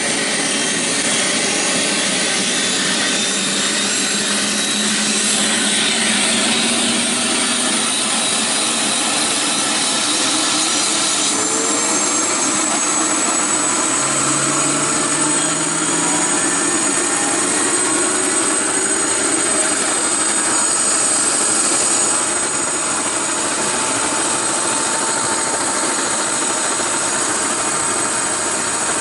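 Helicopter running, a steady loud rush of turbine and rotor noise with a high whine on top that shifts pitch slightly about a third of the way in.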